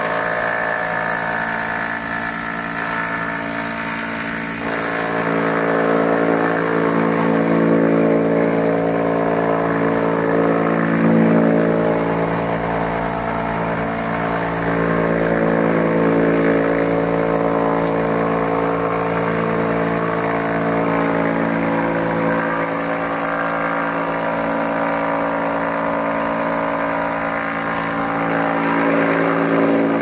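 Disc wood chipper running with a steady mechanical hum while scraps of wood veneer are fed in on its conveyor belt.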